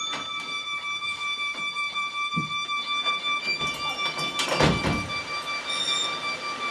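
Violin holding one high, steady note, its loudness pulsing quickly.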